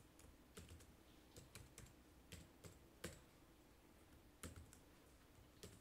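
Faint, irregular typing on a computer keyboard: about a dozen scattered single keystrokes, with near silence between them.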